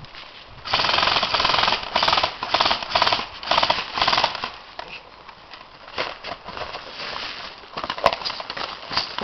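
Airsoft guns firing on full auto in four short rapid bursts over the first few seconds, then a few scattered single clicks.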